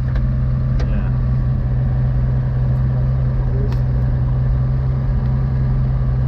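1952 GMC mega truck's engine running steadily at a constant speed, with a couple of faint clicks.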